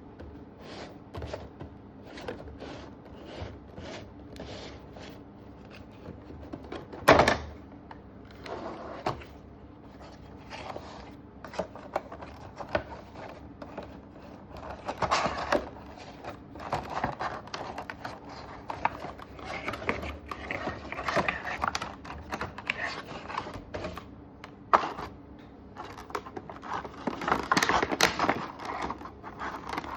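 Handling and opening a cardboard Funko Pop box: a run of irregular taps, scrapes and rustles, with one loud knock about seven seconds in and busier scraping and crinkling in the second half.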